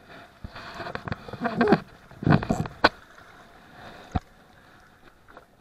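Close handling noise: rustling clothing and gear and knocks of feet on loose riprap rocks, busiest in the first half, with a single sharp click about four seconds in.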